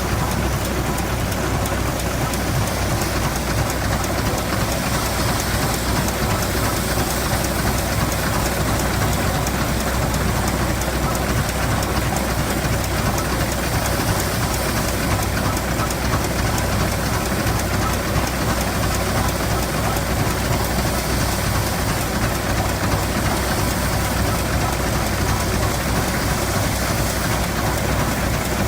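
Antique farm machinery at a threshing show running steadily: a constant low engine hum under an even rushing noise, with no change in level.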